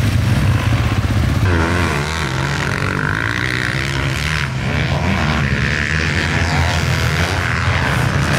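Motocross bike engines: a close engine running steadily at first, then from about a second and a half in several bikes revving and accelerating, their engine pitch rising and falling.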